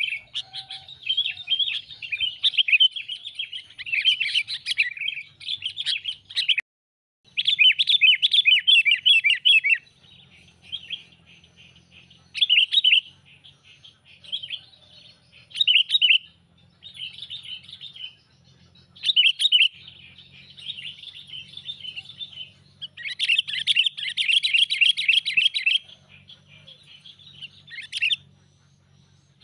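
Sooty-headed bulbul (kutilang) calling: repeated bursts of fast, chattering notes, with the loudest runs about a third of the way in and again near the end, and shorter phrases in between. The sound cuts out briefly just before the first loud run.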